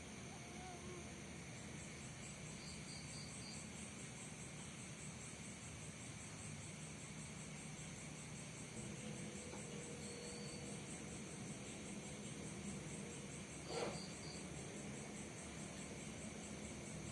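Insects, crickets by the sound of it, trilling steadily in a fast, even, high pulse, with a few short chirps in small groups over the top. About fourteen seconds in there is one brief, louder sound.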